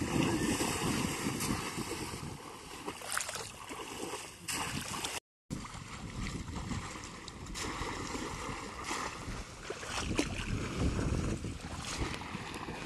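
Shallow floodwater splashing and sloshing as people wade through it and plunge a bamboo polo fish trap into the water, with many short irregular splashes. The sound cuts out completely for a moment about five seconds in.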